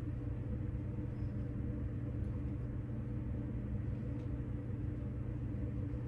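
Steady low hum of background machinery, such as ventilation or an appliance, with a couple of faint light ticks about two and four seconds in.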